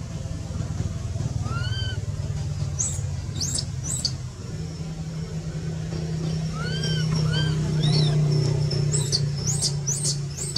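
Short high-pitched animal calls, arched and rising then falling, come in two clusters with quick high chirps between them, over a steady low hum like an idling engine.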